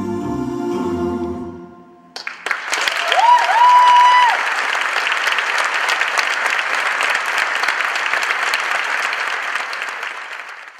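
An a cappella vocal quartet's final held chord, dying away about two seconds in. An audience then starts applauding, with one piercing whistle that rises and holds a moment about a second later. The applause runs on steadily and is faded out at the end.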